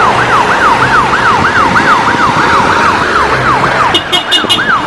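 Ukrainian ambulance's electronic siren wailing in fast repeating sweeps, about three a second, over street traffic noise. About four seconds in, four short high beeps sound.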